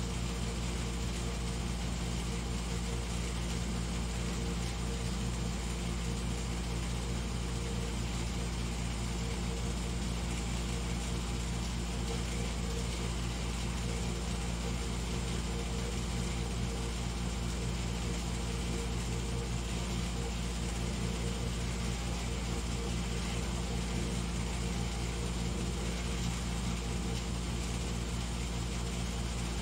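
Steady low mechanical hum with a few fixed pitches, unchanging throughout.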